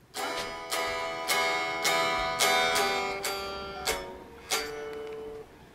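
Acoustic guitar played by plucking, a run of single notes and chords about one every half second, the last one ringing on and fading just before the end.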